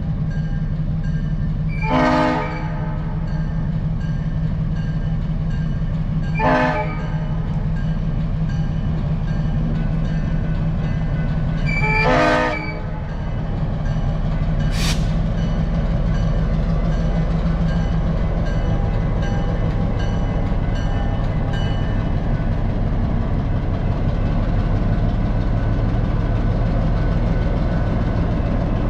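Diesel switcher locomotive's engine running steadily at low speed, with three short horn blasts a few seconds apart in the first half and a brief sharp sound about halfway through.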